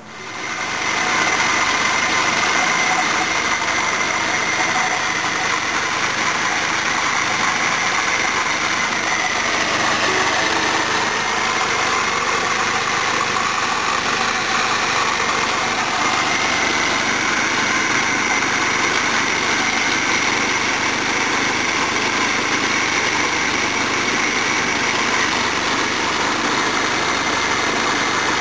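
Ford Cortina Mk4's 1.6 Pinto four-cylinder engine, fitted with a Weber 32/36 carburettor, running steadily. It comes in loud within about a second and holds an even level.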